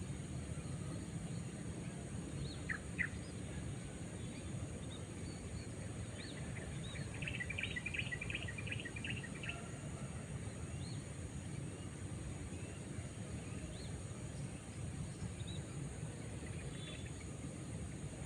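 Birds calling over a steady low outdoor rumble: scattered short chirps, with a quick run of about ten notes near the middle. A short sharp double click comes about three seconds in.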